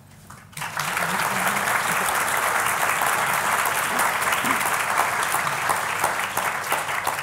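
Audience applauding. The clapping starts about half a second in after a brief hush, holds steady, and fades near the end.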